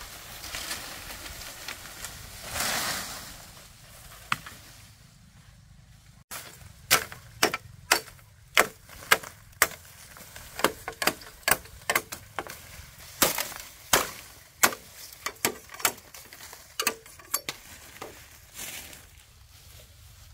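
A run of sharp knocks, roughly two a second with short pauses, starting about six seconds in and stopping shortly before the end. Before the knocks there is a steady hiss that swells briefly about two and a half seconds in.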